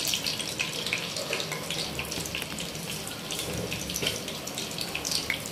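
Cumin seeds sizzling in hot cooking oil: a steady hiss speckled with many small crackles and pops.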